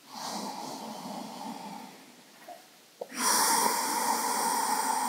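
A woman's slow, deep breathing close to the microphone during a held yoga stretch. A softer breath lasts about two seconds, then after a short pause a louder, longer breath begins about three seconds in.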